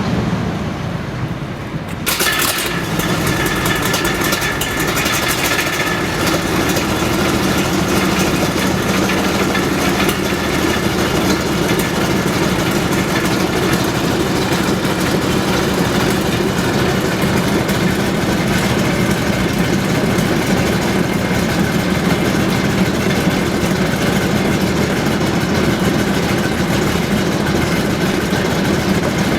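Maybach HL 120 V12 petrol engine of a Panzer IV Ausf. G starting: it comes up suddenly about two seconds in, then runs steadily.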